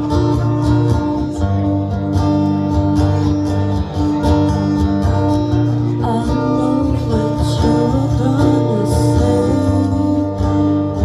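Live acoustic guitar music, strummed chords with a steady rhythm. A wavering melody line comes in over the chords in the middle.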